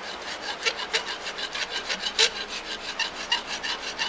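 Hand file rasping across a brass-brazed steel joint in quick, even strokes, cleaning off the excess brass, clinker and scale; one stroke about two seconds in is harder than the rest.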